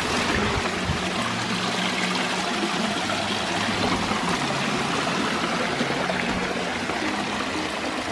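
Creek water rushing and spilling over rocks, a steady even sound.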